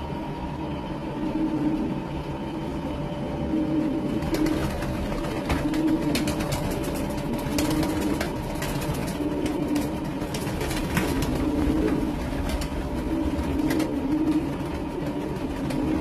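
Racing pigeons cooing, a repeated low warbling coo every second or two, with sharp wing-flap clicks and claps starting about four seconds in.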